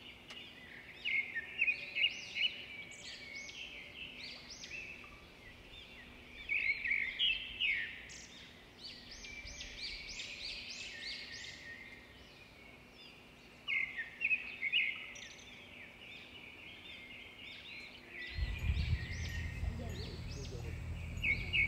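Small birds chirping in rapid clusters of short, high calls. About three-quarters of the way through, a low steady rumble starts underneath.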